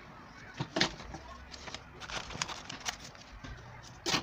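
Scissors snipping paper in a string of short clicks, then a louder clatter near the end as the scissors are set down on the table.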